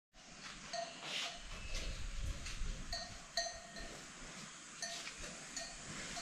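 Bells on grazing cattle clinking now and then: about seven short metallic rings, scattered and unevenly spaced, over a faint background.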